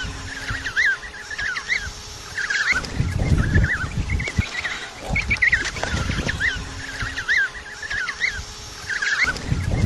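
A penguin colony calling: many short, overlapping squawking calls from numerous birds, with a low rumble underneath that swells about three seconds in and again near the end.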